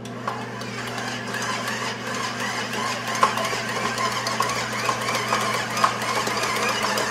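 Electric stand mixer running at medium speed with its dough hook kneading stiff bagel dough: a steady motor hum that builds in loudness over the first few seconds, with a few sharp knocks.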